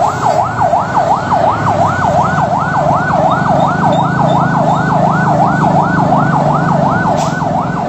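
Electronic siren in a fast yelp, the pitch rising and falling about three times a second, over a low rumble, with a single click near the end.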